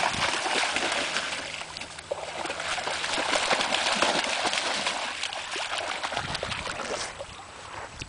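Dogs splashing and wading through shallow water, a steady run of sloshing and splattering. Wind rumble on the microphone comes in near the end.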